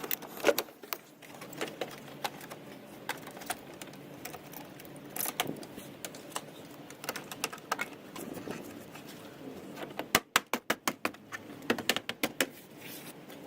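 Light clicking and rattling of small hard parts being handled as a car door handle is worked on, with a quick run of sharp clicks, about eight in a second, about ten seconds in.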